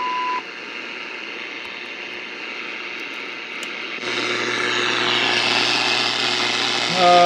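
Sanyo Campanetta all-wave radio hissing with shortwave static from its speaker. A steady test tone, the signal generator's 1 kHz modulation, cuts off just under half a second in as the generator is retuned. About four seconds in the static grows louder and a low hum joins it, as the radio searches for the 15 MHz test signal.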